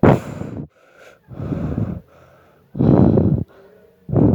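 A person breathing heavily close to the microphone: about four loud, gasping breaths, each about half a second long, a little over a second apart.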